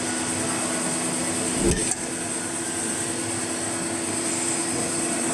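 Hydraulic CNC press brake running with a steady hum and a faint high whine, with a single dull knock about a second and a half in.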